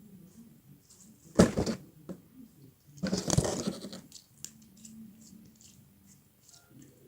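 Slime being worked by hand, with two short bursts of crackling, squishing noise about a second and a half and three seconds in, and faint clicks and ticks between them.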